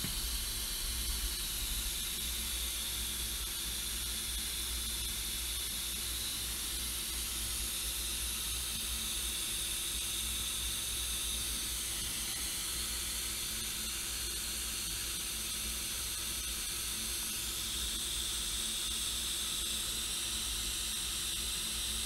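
Steady hiss with a faint low hum, unchanging throughout: background noise with no distinct events.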